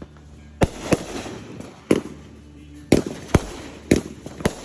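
Consumer fireworks going off: a quick run of sharp bangs, about seven in under five seconds, each with a short echoing tail.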